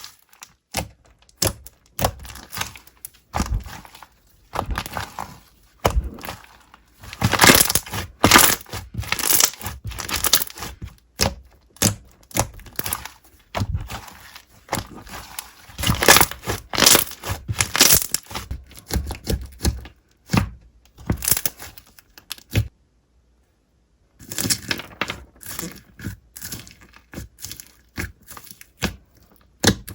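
Slime being squeezed and kneaded by hand, giving dense, irregular crackling and popping clicks. The sound drops out completely for about a second and a half about two-thirds of the way through.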